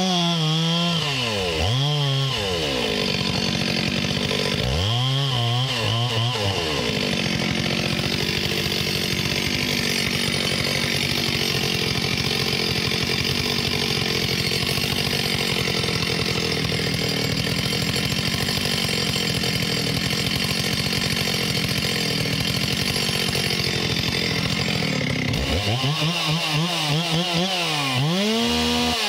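Stihl 044 two-stroke chainsaw with a gutted muffler cutting through a large log at full throttle. The pitch dips and recovers twice as the chain bites in, then holds steady under load for most of the cut. Near the end the saw comes free and revs higher, its pitch swinging up and down.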